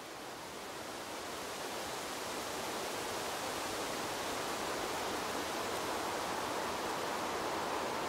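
Wind blowing through trees, a steady rushing of leaves that grows louder over the first few seconds and then holds steady.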